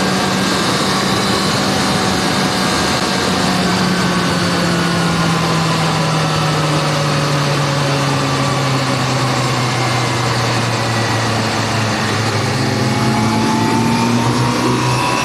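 Suzuki GSX-R600 SRAD inline-four engine heard from on board with wind rush. The engine note falls slowly and steadily for about twelve seconds as the revs drop, then climbs again near the end as the throttle opens.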